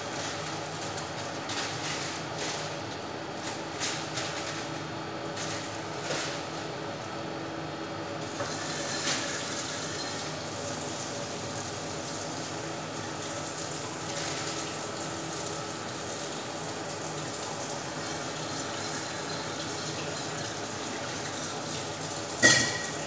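Tap water running into a stainless steel sink as a metal sink strainer basket is rinsed under it, starting about a third of the way in, with a few small clatters before. Near the end a single sharp metal clank rings out as the strainer is dropped back into the drain.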